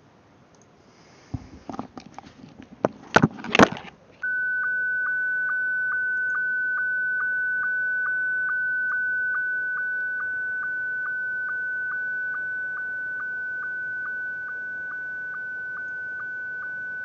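Slow-scan television (SSTV) transmission audio from MMSSTV: a steady high tone, broken about two and a half times a second by a short dip to a lower pitch, the sync pulse at the start of each scan line. It starts about four seconds in, after a few knocks and rustles, and steps down in loudness twice as the speaker volume is turned down.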